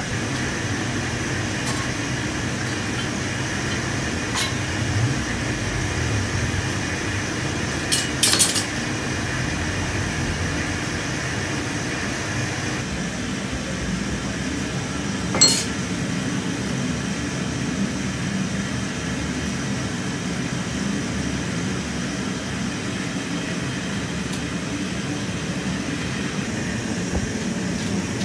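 Steady machine hum, like a fan or blower, with a few sharp metallic clinks of a hand tool striking the steel moulding flask as sand is packed into it. There is a quick cluster of clinks about a third of the way in and a single louder one about halfway through.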